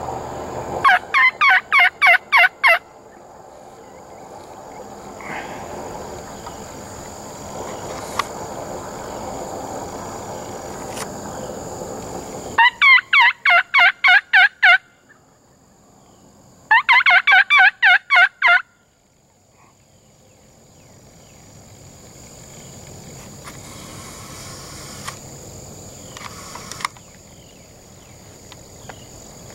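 Rio Grande wild turkey gobblers gobbling three times. Each gobble is a rapid rattling series of about eight pulses lasting around two seconds. The first comes about a second in, and the other two about thirteen and seventeen seconds in.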